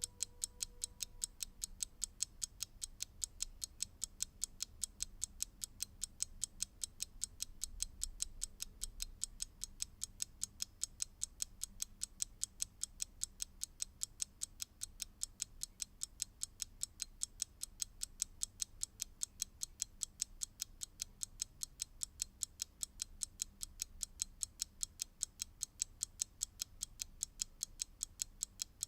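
Clock ticking steadily, with fast, evenly spaced sharp ticks, several a second.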